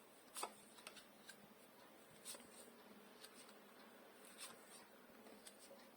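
Faint, scattered rustles and light clicks of tarot cards being handled, each brief, against near silence.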